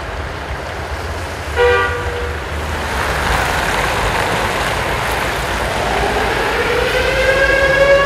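City street traffic with a short car horn toot about one and a half seconds in. Near the end a civil-defence warning siren starts its wail, rising in pitch and then holding: a test of the public warning system.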